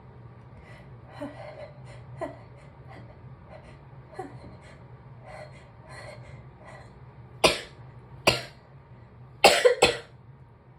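A person sneezing: several soft, catching breaths build up, then four sharp sneezes, two single ones followed by two in quick succession near the end.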